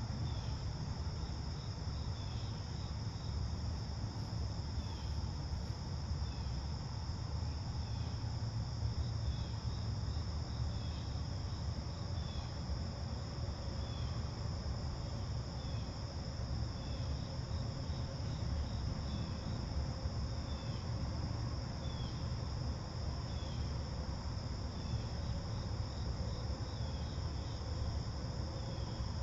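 Crickets singing in a steady, continuous high trill, with a short chirp repeating every second or two over a low, steady rumble.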